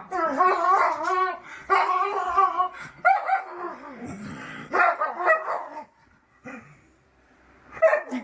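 A dog vocalizing in a string of drawn-out, pitch-bending whines and yips, falling quiet about six seconds in before calling again near the end.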